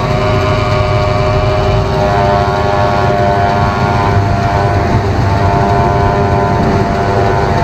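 John Deere self-propelled forage harvester chopping grass silage, its engine and cutterhead giving a steady whining drone, with a tractor running alongside.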